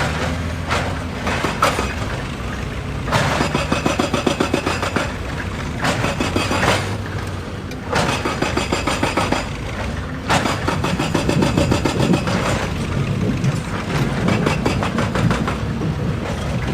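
Excavator's diesel engine running steadily, with several bursts of rapid rattling strikes, each lasting one to three seconds.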